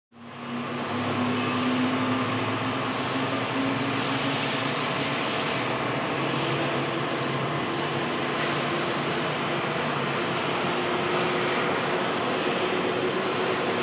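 Boeing 787-8 Dreamliner's jet engines on the takeoff roll, a steady, loud engine noise with a faint hum that shifts higher in pitch about halfway through.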